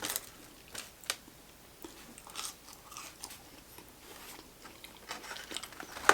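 Close-miked eating sounds: scattered soft crunches and small mouth clicks.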